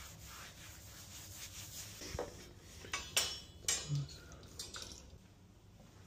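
A wall being wiped by hand, a soft rubbing, then several sharp knocks and clatters as art panels are handled and hung on the wall, loudest about three and a half seconds in.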